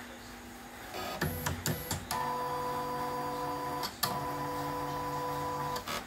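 CNY E900 portable embroidery machine powering up: a few clicks and short mechanical movements, then its motors run with a steady whine in two stretches, broken by a click about four seconds in, as the machine initialises.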